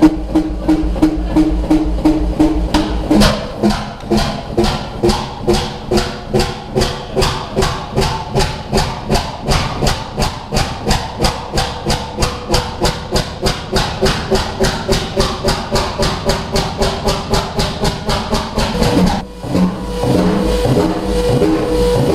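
Fairbanks Morse Model 32E two-stroke diesel stationary engine running, with an even beat of exhaust pulses at about two to three a second over a steady hum. Near the end the beat breaks off and a steadier sound takes over.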